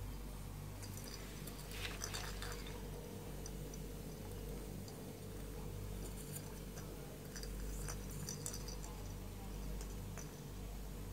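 Faint scattered clicks and taps of a kitten pawing and biting a plastic ball toy and a feather toy on a hard floor, coming in two flurries, over a steady low hum.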